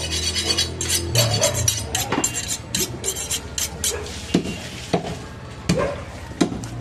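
Butcher's steel knife making quick metallic scraping and clinking strokes for about four seconds, then a few separate knocks as it works into a goat carcass on a wooden chopping block.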